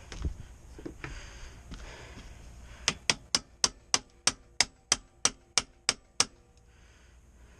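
A hammer striking metal about a dozen times, about three blows a second, each blow with a short metallic ring.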